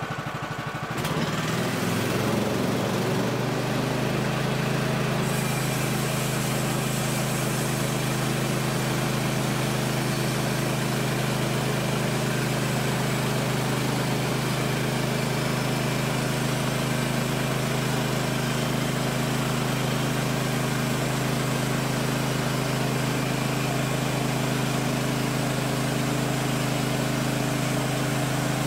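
Woodland Mills HM130 Max band sawmill's Kohler gas engine starting up and revving up to speed over the first two or three seconds, then running steady at full speed while the band blade saws along a squared Douglas fir log.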